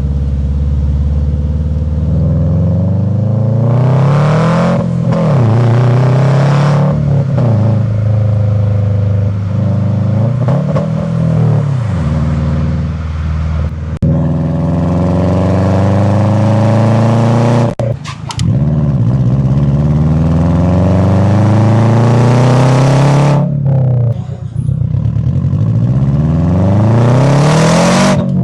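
2007 Subaru WRX's turbocharged flat-four engine, breathing through a modified turbo and an aftermarket catback exhaust, revving and accelerating again and again, its note climbing and falling with each run. The sound drops out briefly a little past halfway and again about three quarters through.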